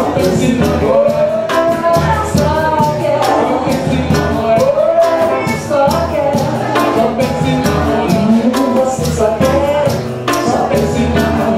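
A live Brazilian band plays: electric guitar, a surdo bass drum and a pandeiro keep a steady beat, with a sung melody over the top.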